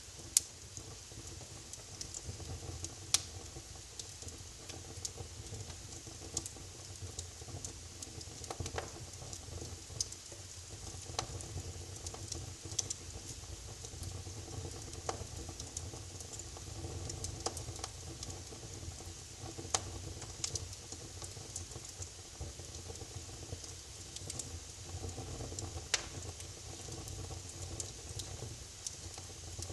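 Wood fire crackling in a fireplace: a steady low hiss and rumble with irregular sharp pops and snaps, a few of them much louder than the rest.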